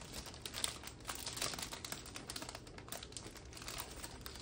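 Clear plastic packaging holding small bags of diamond-painting drills crinkling and rustling as hands handle it, a steady stream of small crackles.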